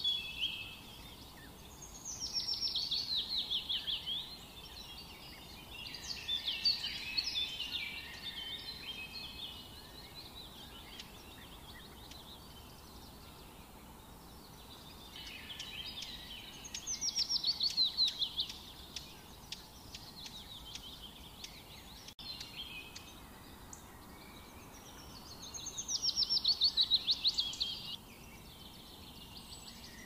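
A songbird singing phrases of rapid, high notes, each lasting two to four seconds, with pauses of several seconds between them, over a faint steady background hiss.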